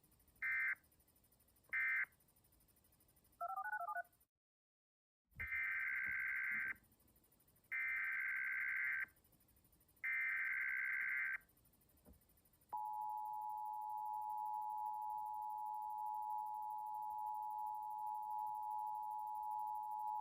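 Emergency Alert System tones: two short screeching digital data bursts about a second apart, the end-of-message code closing the previous alert, then a brief warbling two-pitch tone and a second of dead silence. Next come three longer data bursts about a second apart, the header of a new alert, followed by the steady two-tone EAS attention signal held for about eight seconds.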